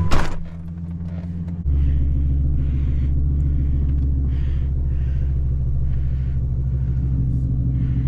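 Ford 6.8-litre Triton V10 idling steadily just after start-up, on its first run after an oil and filter change while oil pressure builds. A sharp click comes right at the start, and the idle grows louder and fuller about a second and a half in.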